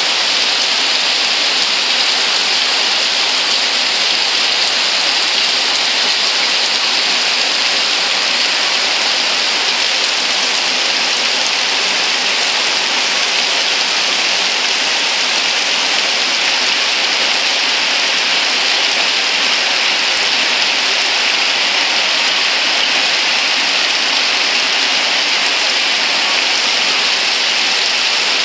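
Heavy rain pouring down steadily onto leaves and wet ground: a loud, dense, even hiss.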